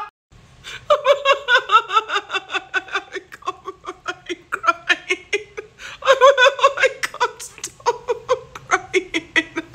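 A woman laughing in an uncontrollable fit: rapid, repeated bursts of laughter with only a brief catch of breath just after the start.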